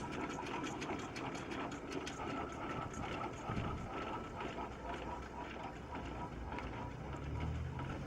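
Aveling and Porter steam road roller's engine running, a rapid, regular mechanical clatter over a low rumble that grows near the end.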